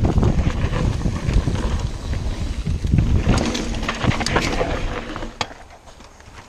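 Mountain bike riding fast down a dirt woodland trail: wind buffeting the microphone over the rumble of tyres on the dirt, with many sharp clacks as the bike hits bumps and roots. The noise fades out over the last second or so.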